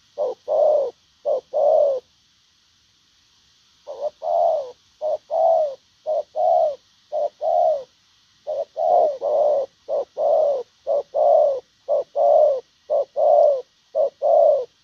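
Spotted dove cooing in the 'gù lèo' style: a long run of short, low coo notes, some paired close together. A few notes come first, then a pause of about two seconds, then the notes return and follow one another faster toward the end.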